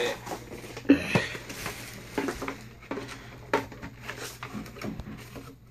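Packaging being handled and opened by hand: irregular rustles, taps and clicks.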